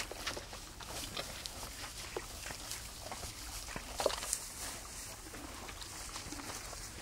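Animals moving about, making scattered short noises and rustles, with one louder, brief sound about four seconds in.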